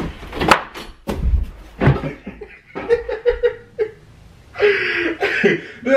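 A man laughing in short bursts, with a few sharp knocks in the first second.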